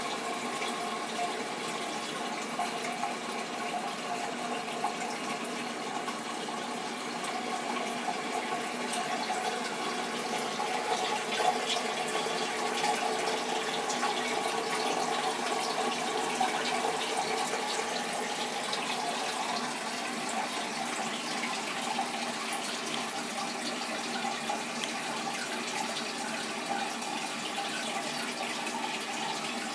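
Siamese cat urinating into a toilet bowl: a steady trickle of liquid falling into the bowl water that goes on for the whole stretch, a little louder about a third of the way in.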